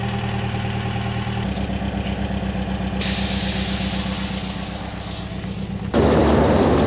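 VW Kombi engine idling with a rhythmic low pulse, and a steady hiss of air escaping at a tyre valve from about three seconds in as a tyre deflator is screwed on to let the tyre down for sand. Near the end the hiss gives way to a sudden louder rushing noise as the van drives off on the sand track.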